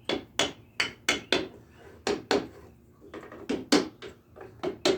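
A hammer tapping on a wooden block to drive a ring down onto the sconce frame: a string of sharp wooden knocks, two to three a second, unevenly spaced as the strikes work back and forth around the ring.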